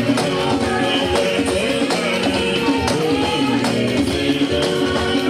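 Yoruba church praise music with hand percussion keeping a steady beat under sustained instrumental tones and singing voices.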